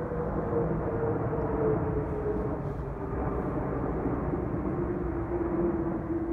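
Jet airliner passing overhead on approach: a steady engine rumble with a whining tone that slowly falls in pitch as it goes by.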